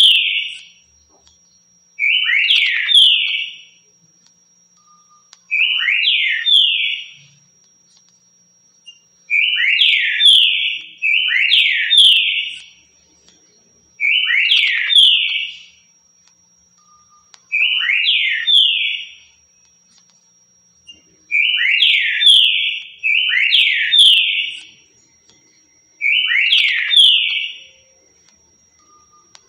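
Green-winged saltator (trinca-ferro) singing its 'currucutil' song: short, loud whistled phrases of a few quick falling and rising notes, repeated every two to four seconds.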